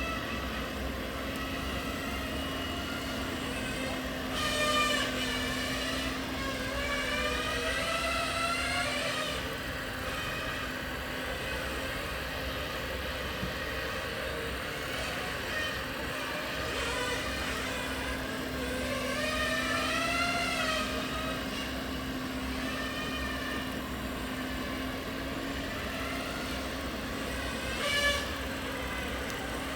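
Radio-controlled model trucks running, with a steady hum underneath and engine-like sounds that rise and fall in pitch twice. A short knock comes near the end.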